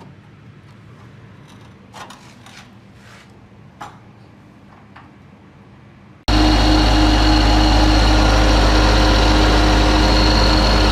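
A few light clicks and knocks of handling, then, about six seconds in, a cut to the loud, steady running of the Isuzu generator set's diesel engine with a constant low hum.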